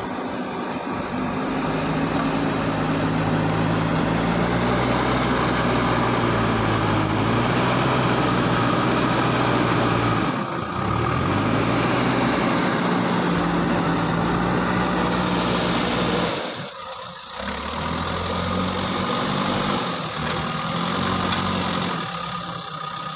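JCB backhoe loader's diesel engine running steadily, its revs dropping about ten seconds in and then climbing back; the sound dips briefly near the end before picking up again.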